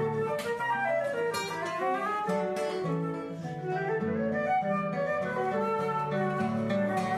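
Live acoustic music: plucked strings with a held melody line moving over them, played steadily.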